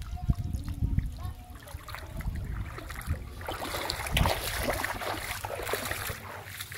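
Shallow water splashing and sloshing around a person's legs as he gathers a cast net and wades through it. The splashing is heaviest in the second half.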